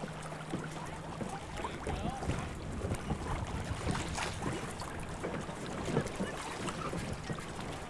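Wind buffeting an outdoor camcorder microphone over choppy lake water: a steady rushing noise broken by many short, irregular gusts and crackles.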